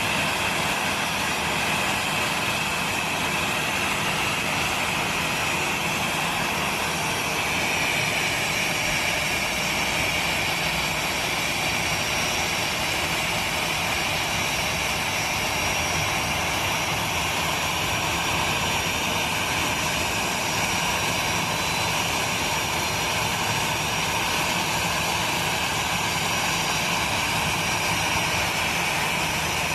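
Steady high whine and rushing noise of an Airbus A321 jet airliner close by, the pitch of the whine easing down slightly about a quarter of the way through.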